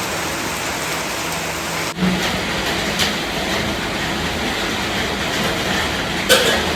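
Heavy rain pouring down in a dense, steady hiss, with a sharp knock near the end.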